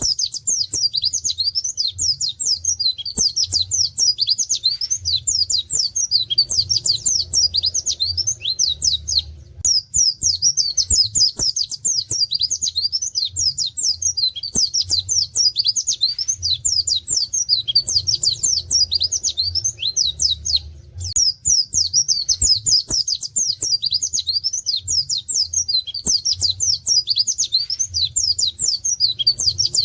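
Pleci (white-eye) singing a long, fast stream of high, downward-slurred 'wit wit' notes in canary-like shots, breaking off briefly twice. A low hum runs underneath.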